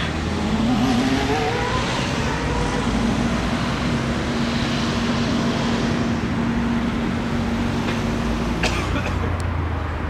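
Ferrari F1-75's turbocharged 1.6-litre V6 running at low revs on track, rising in pitch over the first couple of seconds, then holding a steady note for several seconds.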